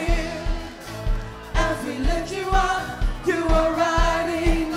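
Church worship band and singers performing an upbeat praise song, with sung lines held over a steady kick-drum beat.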